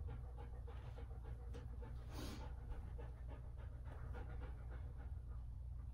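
A dog panting in quick, even breaths, over a steady low hum.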